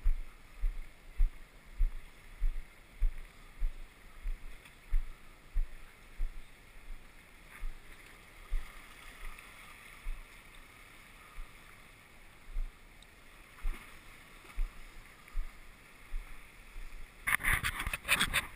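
Footsteps on a wooden deck, heard as low thuds at a walking pace of about one and a half steps a second, over the steady wash of sea water around rocks. Near the end, a burst of loud rustling noise on the microphone.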